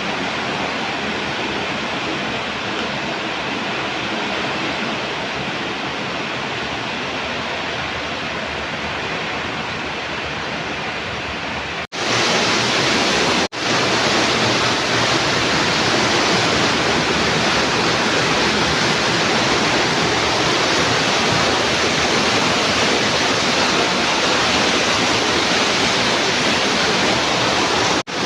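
Heavy rain pouring down in a dense, steady hiss. It breaks off briefly about twelve seconds in and comes back louder.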